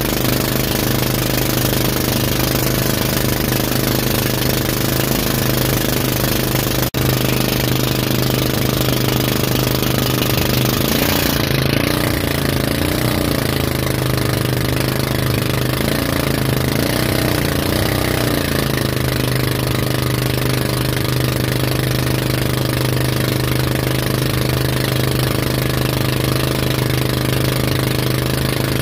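Towing motorboat's engine running steadily at speed under a constant rush of wind and water, its pitch wavering for several seconds about halfway through. A single sharp click about seven seconds in.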